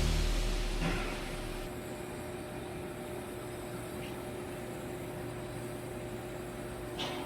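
A steady faint electrical hum with hiss, after the last of a music track fades out in the first second or two.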